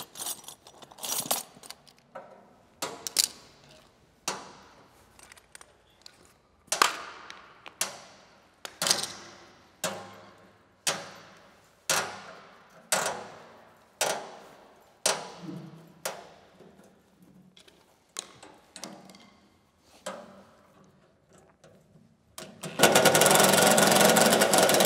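Sharp metal-on-metal strikes, about one a second, each ringing briefly, on the rusted screws at the base of a steel welder cabinet. Near the end a cordless impact driver starts and runs with a loud, dense rattle as it works a stuck screw.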